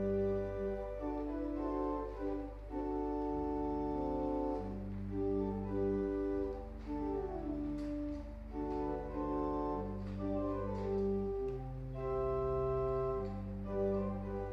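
Organ music: slow held chords that change every second or two over sustained bass notes.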